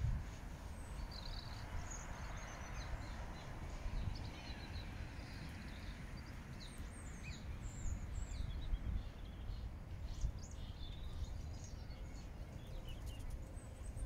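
Eurasian robin singing short, high-pitched phrases in scattered bursts, over a steady low background rumble.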